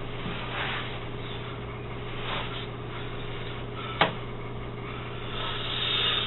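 Steady electrical hum of room tone with a few soft rustling noises and one sharp click about four seconds in.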